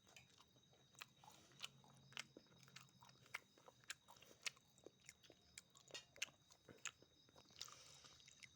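Faint crunching chewing: irregular sharp crunches, about two or three a second, beginning about a second in.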